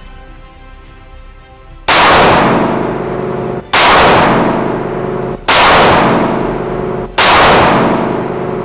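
Four pistol shots fired one-handed, evenly spaced a little under two seconds apart and starting about two seconds in. Each shot rings on in a long echo off the walls of an indoor range until the next.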